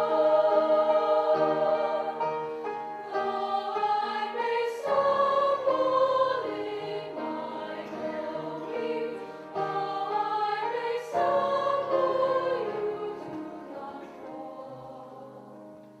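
Treble choir of young women singing sustained chords with piano accompaniment, growing softer toward the end.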